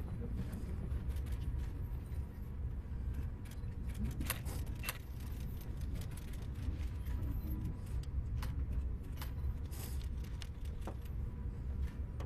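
Low, steady room rumble from a crowded hall, with faint murmuring and scattered sharp clicks and rustles as people move about.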